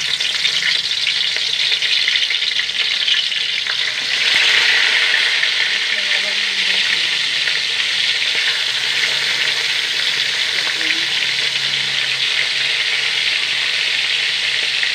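Hot oil sizzling steadily around small whole fish frying in an aluminium wok, growing louder about four seconds in.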